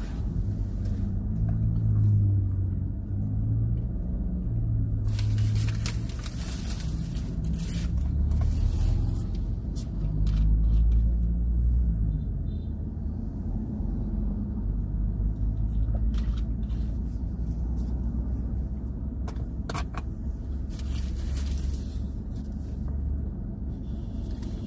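Steady low rumble of a car, heard from inside the cabin, with a few spells of paper rustling and some light clicks and handling noises while a patty is eaten from its paper bag.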